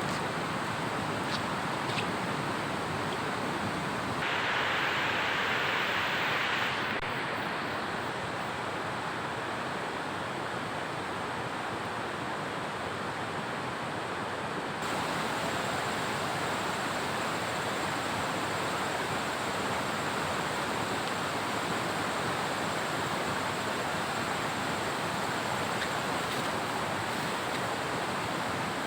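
Heavy rain falling steadily, a dense even rushing noise. Its tone shifts abruptly a few times.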